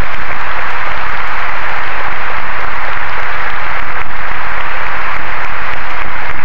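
Large crowd applauding, a dense, steady clapping.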